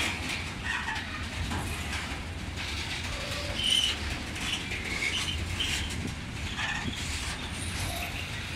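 Freight train wagons rolling past on the track with a steady low rumble, with short high-pitched notes here and there over it.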